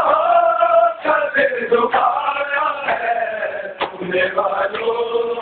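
Men's voices chanting a mourning lament in a sustained, sung tone, the chant of a Shia matam gathering.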